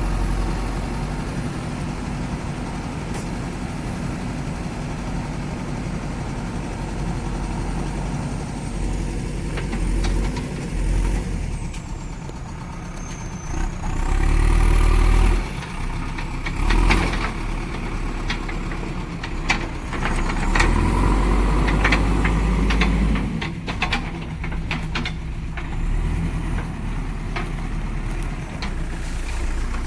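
JCB backhoe loader's diesel engine running, with its pitch and loudness rising in a couple of stretches as it works under load. Sharp cracks and knocks come through in the second half.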